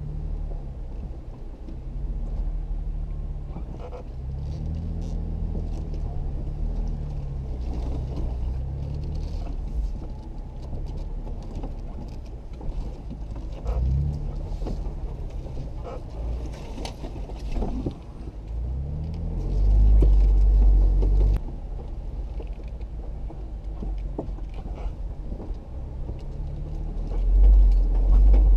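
Jeep Wrangler JK engine running at crawling speed on a rough trail, its pitch rising and falling with the throttle. Scattered knocks and rattles are heard over it, and there are two heavier low rumbles, one about two-thirds of the way through and one near the end.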